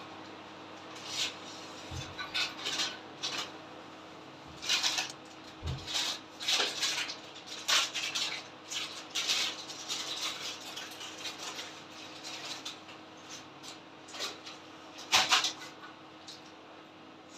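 Irregular short scratchy strokes of a Chinese painting brush worked on paper and against a ceramic paint dish, with one louder scrape near the end. A faint steady hum lies underneath.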